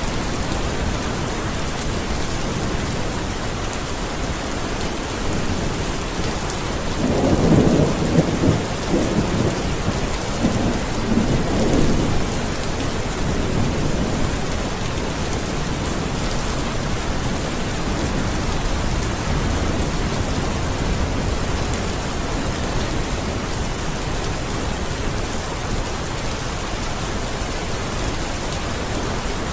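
Steady heavy rain falling, with a roll of thunder rumbling from about seven to twelve seconds in.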